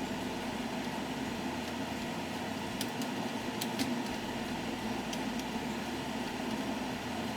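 A steady whirring of a fan or motor-driven household appliance, with a few faint clicks.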